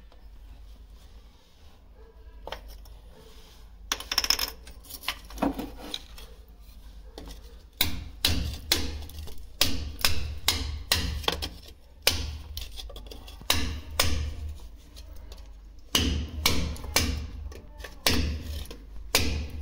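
Hammer striking in a steady rhythm, about two blows a second, starting about eight seconds in. A few lighter clinks come earlier, around four seconds in.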